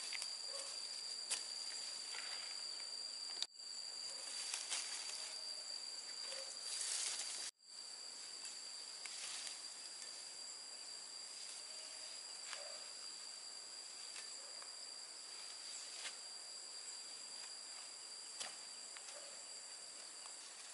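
Steady high-pitched drone of insects in a chorus, with a second thinner tone above it, over faint scattered ticks and rustles. The sound drops out for an instant twice in the first eight seconds.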